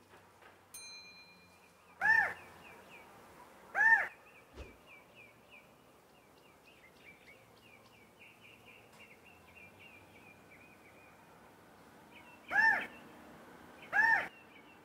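California quail giving four loud single calls, each a short note that rises and falls, in two pairs about two seconds apart. Faint high chirping notes run between the pairs.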